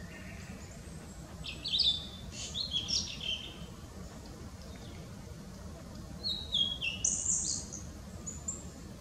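Male blue-and-white flycatcher singing: two phrases of quick high notes, the first about a second and a half in and the second about six seconds in, which steps downward in pitch.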